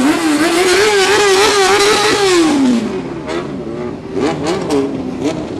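Sport motorcycle engine revved hard and held high, its pitch wavering, for about three seconds before the revs drop away. It is followed by shorter blips of the throttle, rising and falling.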